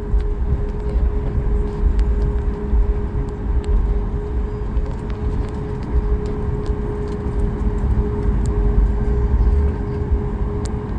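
Cabin noise inside a Boeing 737 MAX 8 jet: a steady low rumble with one constant hum, pitch unchanging.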